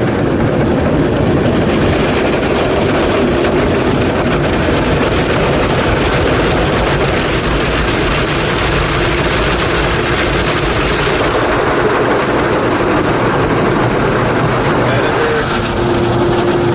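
Continuous loud noise with a low rumble underneath and no distinct events; the hiss at the top end drops away about eleven seconds in.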